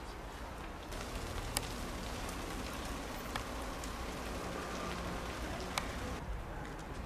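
Steady outdoor background hiss, with a few faint sharp clicks scattered through it.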